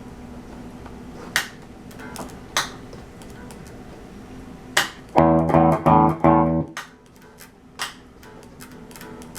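Electric guitar played through a Carvin X100B tube amp that keeps cutting out. There is a steady low hum and a few sharp clicks, then about five seconds in, four loud strummed chords come through for about a second and a half and stop abruptly. This is the drive channel dropping out, a fault later traced to a failed phase inverter tube.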